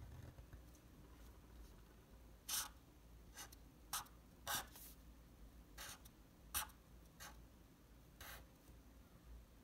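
Felt-tip marker drawing on paper: about nine short, quick strokes scratching across the sheet, starting about two and a half seconds in.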